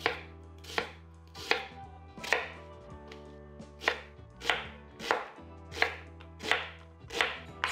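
Chef's knife dicing a yellow onion on a bamboo cutting board: about ten steady, evenly spaced strokes, each blade cutting through the onion and knocking on the board, roughly one every three-quarters of a second.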